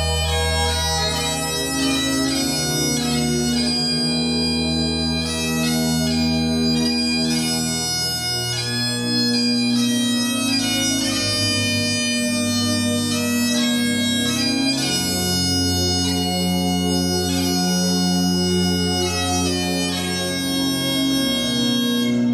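Bagpipes playing a tune: a continuous reedy melody with quick note changes over held lower tones.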